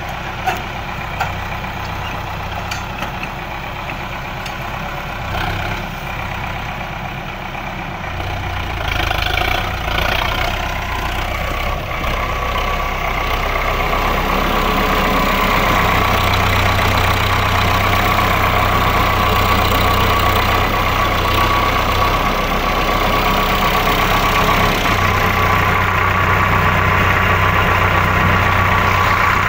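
Preet tractor's diesel engine running steadily, getting louder about halfway in and then holding at that level.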